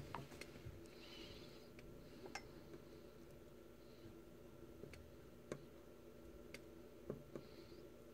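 Near silence: faint, scattered small ticks and clicks of a soldering iron tip and a thin wire touching the solder pads of a drone flight controller, with two brief faint hisses, one about a second in and one near the end.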